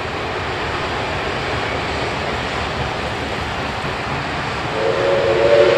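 Steam-hauled heritage passenger train running past with a steady rushing rumble. Near the end, a short multi-note whistle chord sounds for about a second and a half and is the loudest part.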